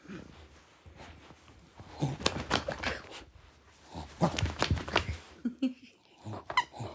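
Dachshund chewing and tugging at a plush corduroy toy: two runs of quick gnawing clicks and fabric rustling, about two seconds in and again about four seconds in, with a brief pitched sound near the end.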